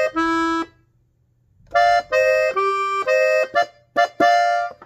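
Hohner button accordion in F, played in its clarinet register, sounding a short melodic phrase. A few notes, a pause of about a second, then a run of notes and chords with brief breaks between them.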